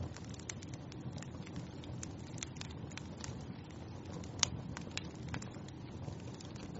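Wood fire crackling in a fireplace: irregular sharp pops and snaps over a steady low burning rumble, with one louder pop about four and a half seconds in.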